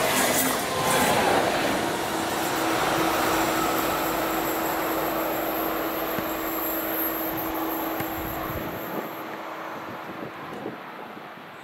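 Electric train rolling past: a steady rush of wheels on the rails with a steady hum over it, fading away over the last few seconds.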